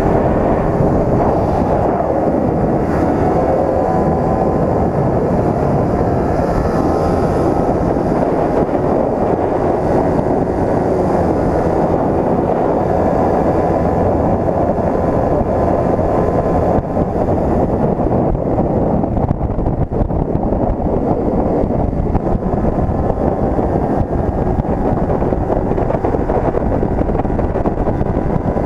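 Wind rushing over the microphone of a motorcycle rider's onboard camera while riding at road speed, with the bike's engine running underneath. It is loud and steady throughout, and its pitch drifts slightly in the first half.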